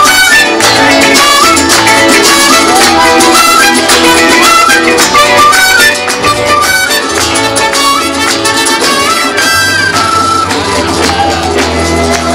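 Live folk band playing an instrumental passage without singing: strummed acoustic guitar and charango with shaken percussion under a moving lead melody. It drops a little in level about six seconds in.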